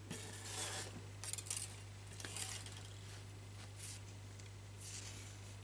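Crochet thread being pulled off its ball and handled by hand: a few short, faint rustles and scrapes over a steady low hum.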